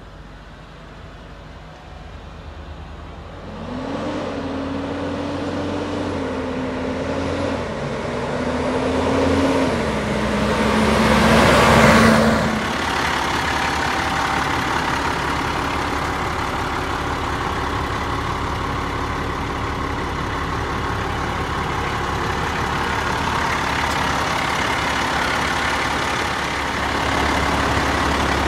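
International 7400 truck's DT530E diesel engine accelerating along the road, its note stepping up and down through automatic gear changes, growing loudest as it passes close about twelve seconds in. After that, a steady diesel engine running.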